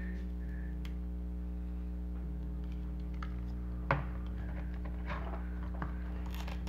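Cloth being peeled off the back of an animatronic toy by hand: one sharp click about four seconds in, then a few small ticks and a brief scratchy rustle near the end, over a steady low hum.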